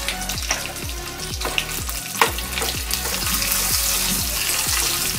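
Hot oil sizzling and crackling in a small steel tadka pan with mustard seeds, curry leaves and dried red chillies, with a spoon stirring it near the end. Background electronic music with a steady beat plays underneath.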